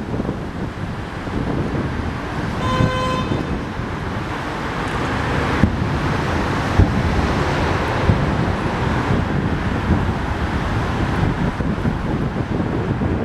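Wind buffets the microphone over a steady outdoor din. A short horn toot sounds about three seconds in. From the middle on come several single sharp bangs of fireworks.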